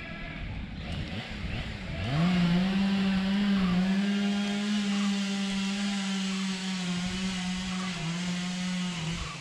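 Train horn sounding one long steady blast of about seven seconds; its pitch rises quickly as it starts about two seconds in, then holds level until it cuts off near the end.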